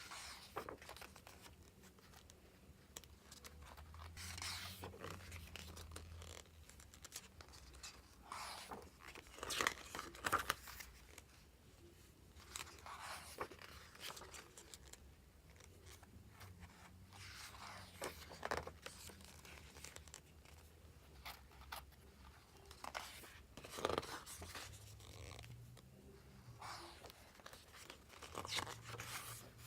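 Packaging being handled and unwrapped: irregular crinkling, rustling and tearing in short bursts, a few louder ones scattered through.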